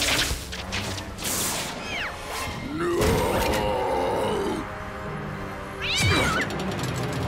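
Sharp crashing sound effects at the start, then a cartoon cat's long yowl that rises and falls. Near the end the cat gives a short, high shriek as it is swept off the desk, over background music.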